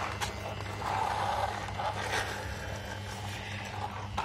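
Plastic toy excavator and toy dump truck pushed and handled on a concrete floor: plastic scraping on the floor, with a few sharp clicks and knocks.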